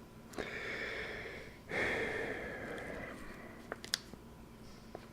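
A person breathing out audibly twice, the second a longer sigh that fades away, followed by a few light clicks near the end.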